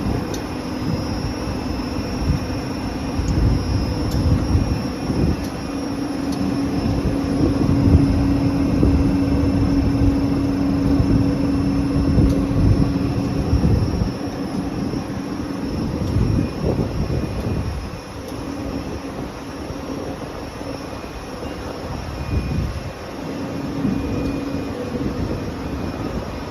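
Rubber extrusion and microwave curing production line running under test: a steady machine drone with a low hum over a rumbling noise, a little louder in the middle.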